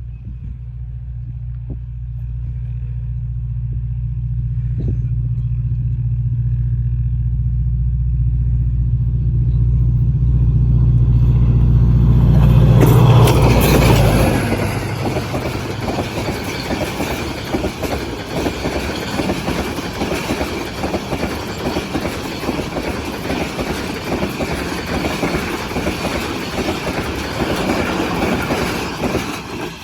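HGMU-30 diesel-electric locomotive approaching at high speed. Its deep engine drone grows steadily louder and peaks as it passes, about two-thirds of the way through the first half. Then the passenger coaches clatter past over the rails for about fifteen seconds, with the clatter ending abruptly near the end.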